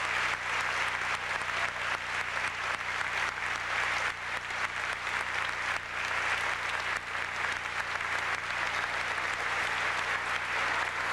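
A large audience applauding steadily and densely, with many hands clapping at once and no let-up.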